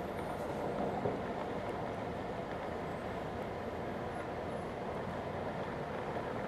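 Steady traffic and engine noise heard from inside a taxi in jammed, barely moving city traffic.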